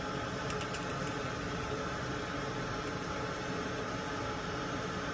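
Steady fan-like whirring hum with a few faint light ticks about half a second in and again near three seconds.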